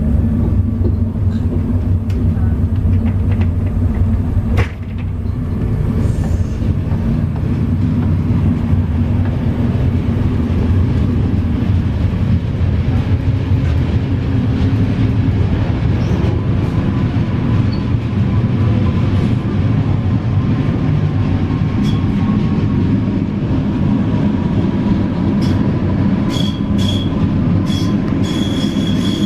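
Train running at speed, heard from inside the first passenger coach behind an FS Trenitalia E444R electric locomotive: a steady low rumble of wheels on rail. There is a sharp knock about five seconds in, and near the end short high-pitched wheel squeals come several times.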